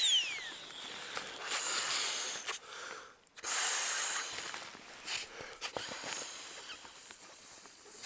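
A small battery-powered Flextail air pump's whine falling in pitch as it spins down, then several breaths blown by mouth into the valve of an inflatable sleeping mat to top it up, each a rush of air with short pauses between.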